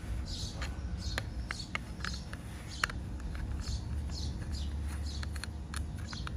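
Small birds chirping over and over, each call a short falling chirp. Sharp clicks come between the calls while the brass extension lance is threaded onto the pressure-washer gun, over a steady low rumble.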